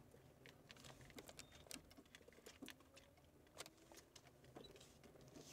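Near silence inside a car: a faint low steady hum with scattered soft, irregular ticks and small rustles.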